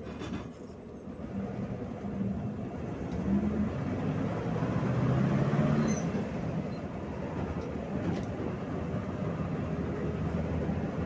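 Gas-converted PAZ 32054 bus's V8 engine pulling under load with road and body noise, heard from inside the passenger cabin. The engine note builds to its loudest about halfway through, then settles to a steadier run.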